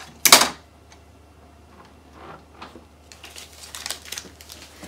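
Hands handling the plastic lid and front panel of an Epson XP-6000 printer: one short, loud rasp about a third of a second in, then faint clicks. Later come light taps and rustling as a small card is handled.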